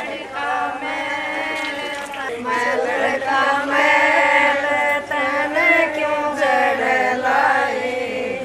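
A chant-like song sung by several voices, holding long notes that bend slowly in pitch.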